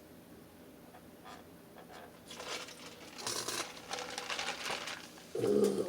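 Crinkling and crackling of paper takeout food packaging being handled, starting about two seconds in and running for about three seconds in quick irregular crackles. It is followed near the end by a short vocal 'ooh'.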